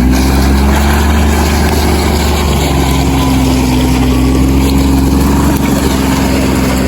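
Engine running steadily at a constant speed, loud and close.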